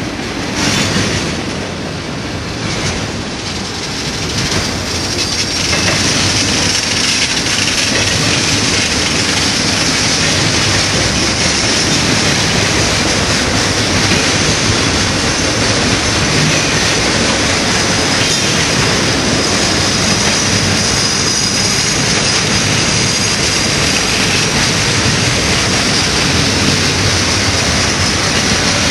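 Double-stack container well cars of a freight train rolling past close by: a steady rumble and rattle of steel wheels on the rails, with wheel clacks in the first few seconds. A steady high-pitched sound joins in about six seconds in.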